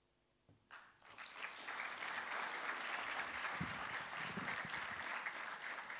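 Audience applauding. After a brief hush, clapping starts about a second in, swells quickly and holds steady, thinning out near the end.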